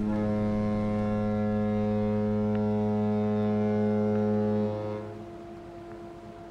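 A ship's horn sounding one long, low blast of about five seconds, then dying away.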